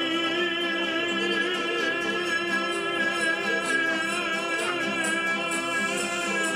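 A man's singing voice holding one long note with vibrato, accompanied by a Spanish tuna's guitars and bandurrias.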